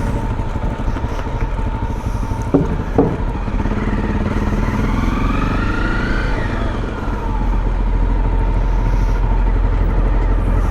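Engines running steadily with a low rumble. Two sharp knocks come about two and a half and three seconds in, and in the middle another engine's pitch rises and then falls, like a vehicle passing by.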